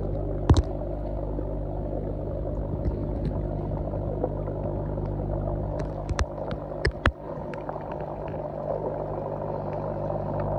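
Steady low hum of pond aeration equipment heard underwater, with bubbling from an air outlet pipe and scattered sharp clicks, several close together about six to seven seconds in.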